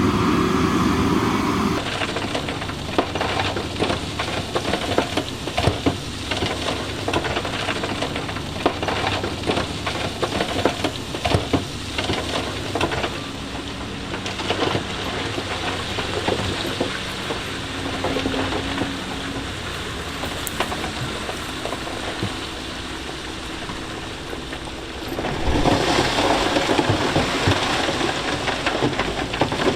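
Loose stone rattling and crunching, a dense crackle of many small clicks, over a diesel engine of heavy earth-moving equipment. The engine note is plain in the first two seconds, and the whole sound grows louder and fuller about 25 seconds in.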